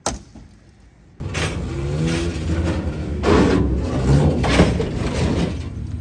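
Car on the move: a steady low engine and road rumble cuts in suddenly about a second in, after a click, and surges louder for a second or so past the halfway point. The car is most likely the slammed 1990s Honda Civic EG hatchback.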